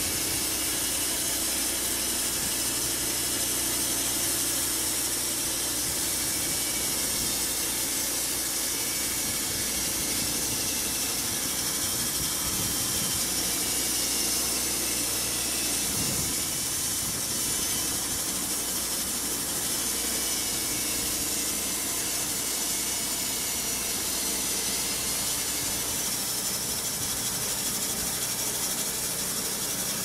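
Homemade band sawmill running, its band blade cutting lengthwise through a birch log with a steady hiss.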